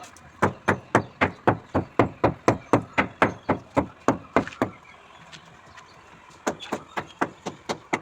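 Rapid, regular hammering blows on a building site, about three or four strikes a second. They stop about halfway through and start again more faintly near the end.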